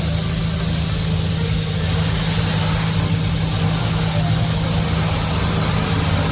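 Steady low machine hum with a constant hiss over it, unchanging throughout.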